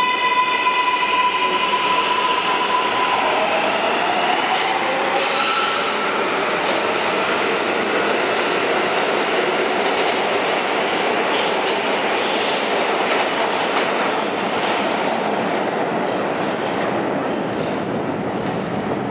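R143 subway train pulling out of a station: the traction motors' whine holds one pitch, then a second whine rises a few seconds in, over the rumble of the cars and clicks of wheels over the rails. The sound fades slightly as the train leaves.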